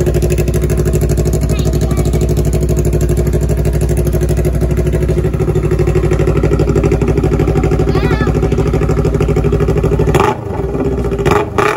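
Kawasaki Ninja 400's parallel-twin engine running steadily, with its exhaust blowing through a short, hollow section of papaya trunk held over the muffler outlet. Near the end the engine sound cuts off abruptly, followed by a couple of knocks.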